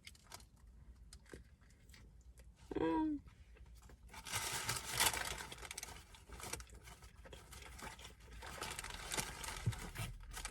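Paper fast-food packaging crinkling and rustling as it is handled: a few scattered clicks at first, then dense crinkling from about four seconds in. A brief hummed vocal sound a little under three seconds in.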